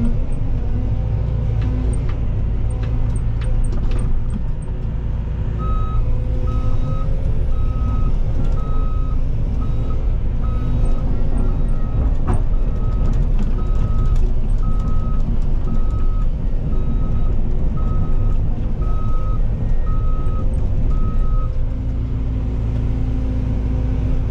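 Cat 313 excavator's diesel engine running steadily, heard from inside the cab. From about six seconds in until a few seconds before the end, its travel alarm beeps about once a second as the machine tracks.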